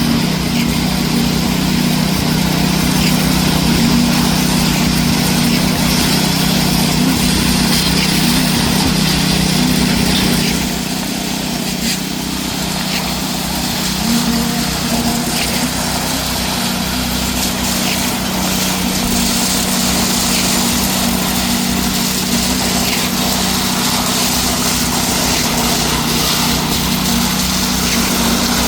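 Concrete pump truck's engine running steadily under load while pumping, dropping slightly about ten seconds in and then picking up again.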